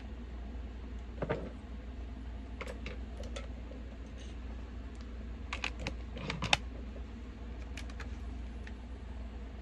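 Scattered light clicks and taps from makeup items being handled, a few at a time, with the sharpest tap about six and a half seconds in, over a steady low hum.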